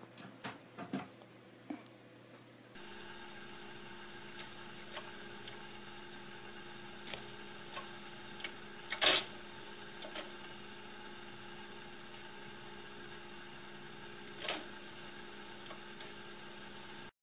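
DVD player's disc drive running with a steady whir made of several fixed tones, broken by scattered mechanical clicks and one louder clatter about nine seconds in. A few sharp knocks come in the first couple of seconds.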